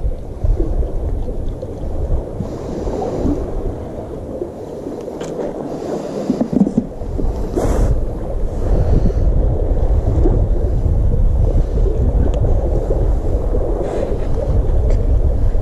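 Wind buffeting the microphone over a steady wash of sea waves. The wind rumble eases for a couple of seconds near the middle, and a few light clicks come through.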